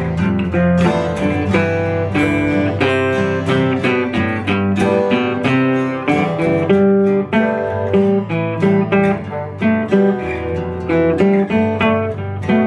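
Live band playing an instrumental passage led by guitar, with quick strummed and picked notes and no singing.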